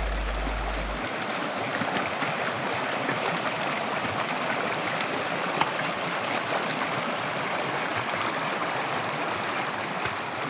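Shallow mountain stream rushing over stones, a steady even rush of water. A deep low boom left over from the intro fades out about a second in.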